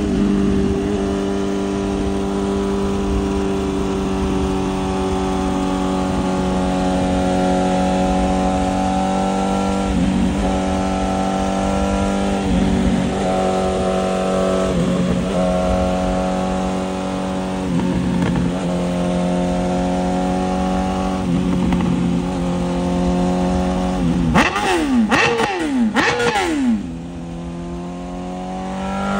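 BMW S1000RR's inline-four running through an Arrow titanium full exhaust, holding a steady high note at constant throttle. Near the end it is blipped up and down with a burst of sharp pops, drops away, then rises again as it accelerates.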